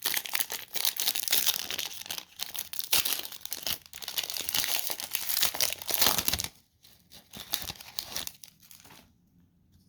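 Wrapper of a football trading-card pack being torn open and crinkled: busy crinkling and tearing for about six and a half seconds, then a few softer rustles that die away.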